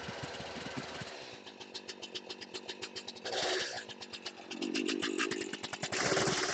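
Chainsaw engine running unevenly at a low idle, ticking over at about five beats a second. There are two short, louder bursts of noise: one about three seconds in, and a stronger one near the end.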